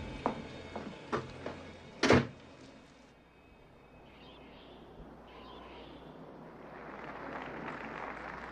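A few short knocks, then a sharp, loud thud about two seconds in. After that it goes quiet, and a soft rushing noise slowly swells.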